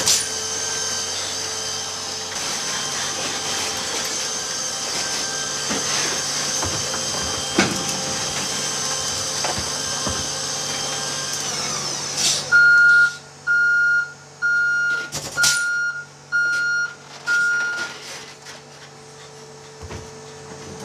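All-electric Heil side-loader refuse truck's arm drive running with a steady electric whine that winds down and stops about twelve seconds in. Six evenly spaced electronic warning beeps follow, with a sharp metallic knock among them, then a lower steady hum.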